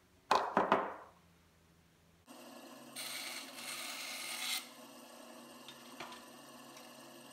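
A few sharp wooden knocks as the wooden clamp jaws are handled, then a benchtop bandsaw starts running steadily. Between about three and four and a half seconds in it cuts through a thin strip of wood, louder and rasping, then runs on unloaded.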